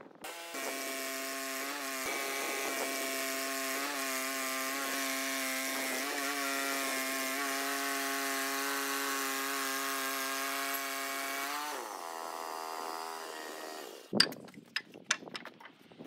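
Woodland Mills HM130MAX portable band sawmill cutting through a log: the gas engine runs steadily under load with the hiss of the blade in the wood, then about twelve seconds in the engine pitch drops as the cut ends. Near the end, a few sharp wooden knocks.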